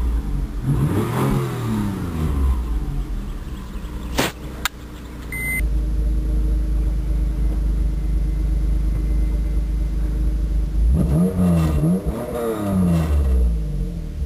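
1995 Mitsubishi 3000GT's naturally aspirated 3.0 L DOHC V6 through its stock exhaust, which has a slight exhaust leak. It is revved twice, then idles steadily, then is revved twice more near the end. The first revs are heard from inside the cabin and the rest at the tailpipes.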